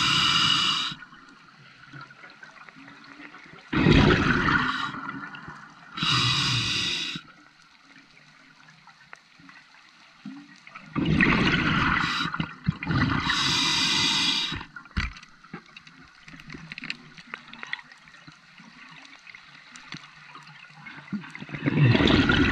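Scuba diver breathing through a regulator underwater, slow and regular, about three breaths. Each breath is a rumbling gush of exhaled bubbles, followed a second or two later by the hiss of air drawn through the regulator.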